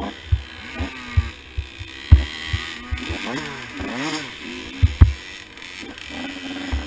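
Big-bore KTM 85 SX two-stroke dirt bike engine revving up and down repeatedly while riding a rough trail. Loud low thumps break over it, the loudest about two and five seconds in.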